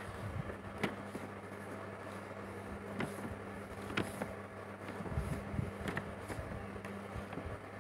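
Steady low hum with a few faint clicks and some soft low thumps.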